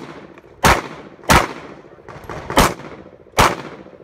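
Glock 19 9mm pistol firing four shots in two pairs about two-thirds of a second apart, with a longer pause between the pairs. Each shot is a sharp crack with a short echoing tail.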